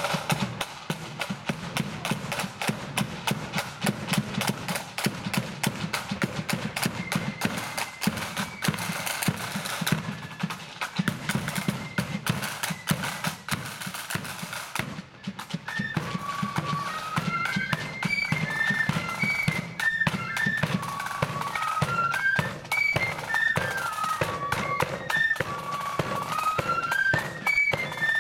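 Marching flute band: side drums and a bass drum beat a rapid, busy rhythm alone for about the first half, then after a short dip the flutes come in with a tune over the drums.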